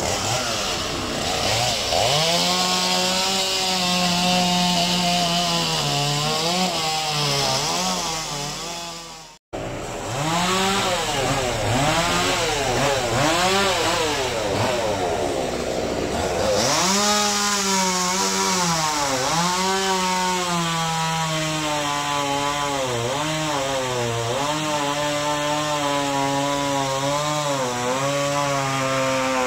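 Chainsaw cutting through wood, its engine pitch repeatedly dropping as it bogs in the cut and rising as it revs free. The sound cuts out for a moment about nine seconds in.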